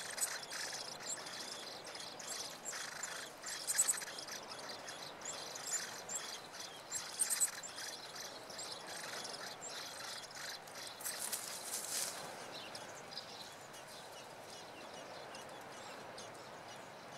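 Common blackbird nestlings giving faint, high, thin begging chirps, mixed with light clicks and rustling of the nest material. A longer rustle comes about two-thirds through, after which it grows quieter as the chicks settle.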